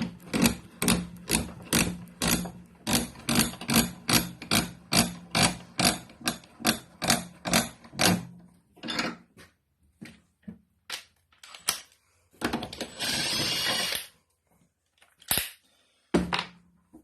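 Wrench work on nuts on a threaded steel rod: about two clicking strokes a second for some eight seconds, then scattered metal knocks and a short whirring burst about two-thirds of the way in.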